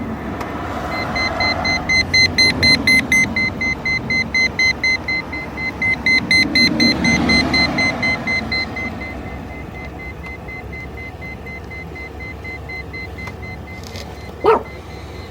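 Wire tracer's tone probe sounding the signal from a tone generator clipped to a harness connector pin: a high electronic tone that pulses rapidly for several seconds, then carries on fainter and steadier.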